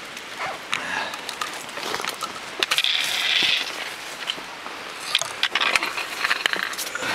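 Scrambling over sandstone through dry brush: a run of sharp clicks and knocks of a trekking pole and boots on rock, with a longer rustling scrape about three seconds in.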